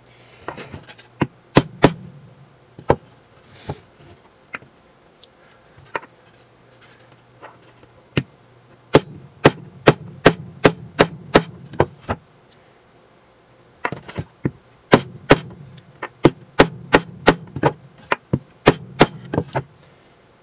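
Hard knocks of a hand pounding on a wooden board laid over a small printed part, forcing a very tight-fitting piece in by brute force. A few scattered blows come first, then two quick runs of about three or four blows a second.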